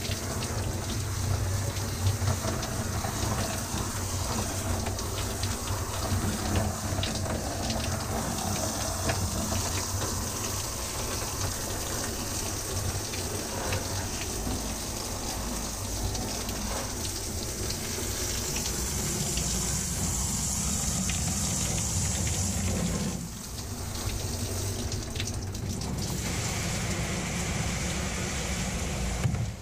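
Water spraying from a handheld shower head onto a soaked fur jacket and the shower stall: a steady spray that dips briefly a little past two-thirds of the way in.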